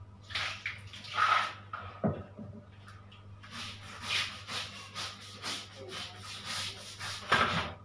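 Long-handled toilet brush scrubbing ceramic bathroom floor tiles in rasping back-and-forth strokes, about two a second through the middle stretch. There is a knock about two seconds in.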